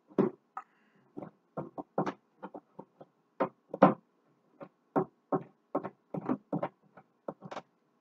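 Clear plastic refrigerator crisper drawer being handled during an epoxy repair, giving a run of short, irregular knocks and clicks, about two or three a second.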